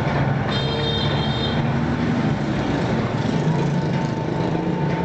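Pig-skin slicing and shredding machine running steadily, its motor giving a constant mechanical hum with a brief high whine about a second in.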